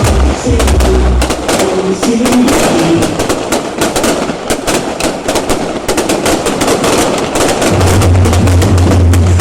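Fireworks crackling in rapid, dense volleys, many sharp small bangs a second, over music, with a steady low hum that drops out about a second in and returns near the end.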